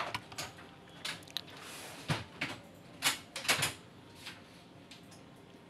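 A single computer mouse click at the start, then faint, scattered short clicks and small knocks at irregular intervals over a low steady hiss.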